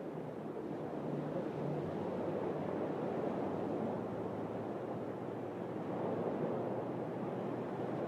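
Sea waves washing on a shore: a steady rush of surf that swells slightly about a second in, with a faint low hum underneath.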